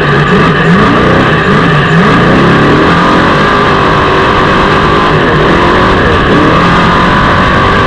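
Off-road trophy truck's engine running hard, its pitch rising and falling through the first few seconds as the throttle is worked, then holding steadier under a heavy rush of driveline and terrain noise.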